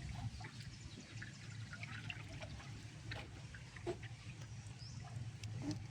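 Floodwater trickling and lapping, with small scattered splashes over a steady low hum.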